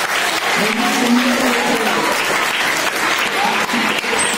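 A large seated audience of schoolgirls applauding with steady, dense clapping, with a few voices mixed in.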